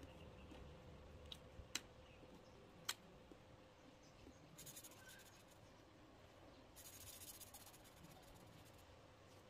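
Faint felt-tip marker sounds: two sharp clicks as a marker is handled, then short bursts of scratchy scribbling as the marker tip colours on paper, the longest near the end.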